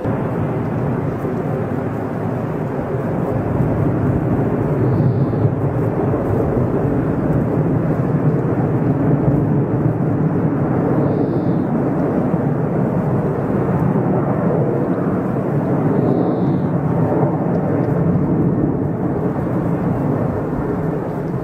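Airbus A380 jet engine noise: a steady, deep rumble that grows a little louder a few seconds in and eases slightly near the end.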